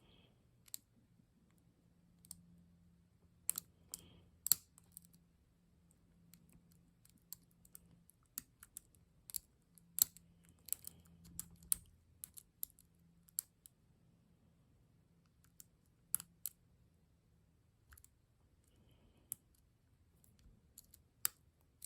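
Lock pick and tension tool working inside a Ruko ASSA Abloy 2 five-pin lock cylinder during picking: scattered sharp metallic clicks at irregular intervals.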